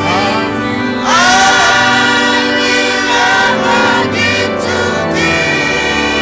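A choir singing gospel music with instrumental accompaniment and a steady bass line.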